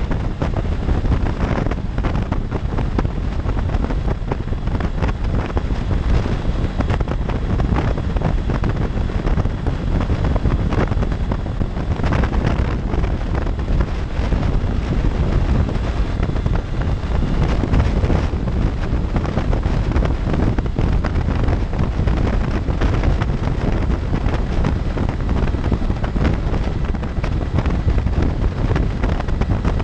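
Steady, heavy wind rush on the camera microphone of a Honda CB500X motorcycle cruising at freeway speed, with the bike's running and tyre noise mixed into it.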